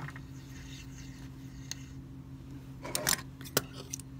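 Steady low electrical hum, with a few sharp clicks and rattles about three seconds in and one more click just after, from a small metal bobbin case and parts being handled at an industrial sewing machine.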